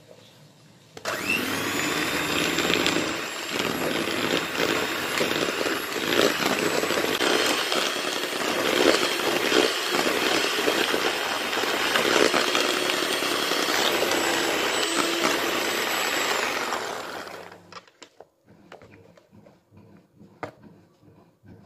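Miyako electric hand mixer whipping thick margarine buttercream in a plastic bowl until smooth. The motor starts with a short rising whine about a second in and runs steadily with the beaters churning. It winds down and stops a few seconds before the end.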